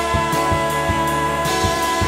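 Indie rock song playing: a band with a steady drum beat under a long held note.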